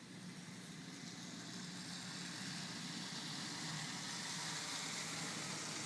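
A motor vehicle's engine running with a steady low hum, under a hiss that grows louder over the first couple of seconds and then holds.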